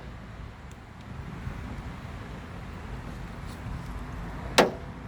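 A single sharp click about four and a half seconds in, from work on a car's outside door handle and its trim, over a steady low rumble.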